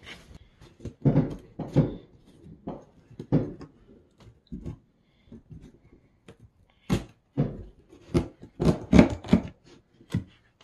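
Irregular knocks, taps and scrapes of a wooden canvas stretcher frame being handled and shifted on a table, with a run of louder knocks in the second half.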